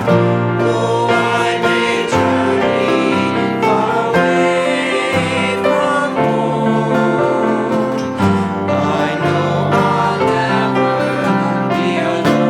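A country-gospel song played on plucked acoustic strings, guitar and banjo, with singing voices.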